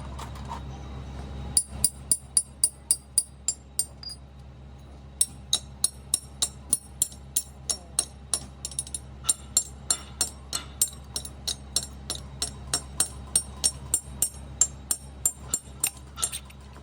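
Sharp metallic clicks or taps repeating evenly, about two to three a second, with a short pause a few seconds in, over a steady low hum.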